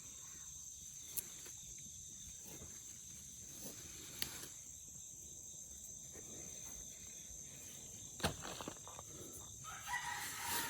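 Steady high insect chirring, such as crickets, with a few sharp clicks scattered through, and a short pitched call near the end.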